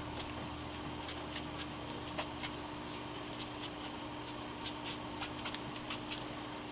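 Tombow dual brush marker dabbing and stroking on card stock: faint, irregular little taps and soft scratches of the pen tip on paper.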